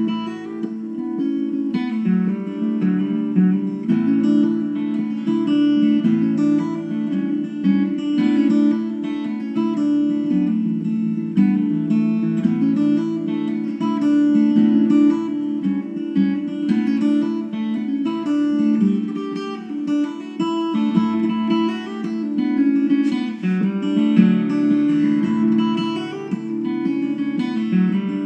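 Solo steel-string acoustic guitar fingerpicking an original jig in DAAEAD altered tuning, with low notes ringing on under the picked melody.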